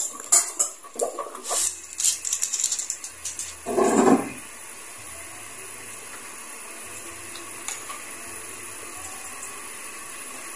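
A metal ladle clinking and scraping against an aluminium pan of thick sauce for the first few seconds, with a short louder rush about four seconds in. The sound then settles into a steady low hiss.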